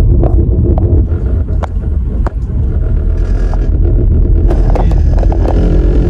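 Vehicle climbing a steep road: a steady low rumble of engine and road noise, with a few sharp clicks.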